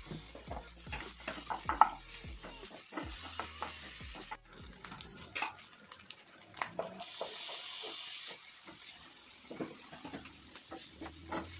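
Prawns and chopped onion sizzling in a non-stick frying pan while a wooden spatula stirs them, scraping and knocking against the pan many times. The sizzle grows brighter for about a second around the middle.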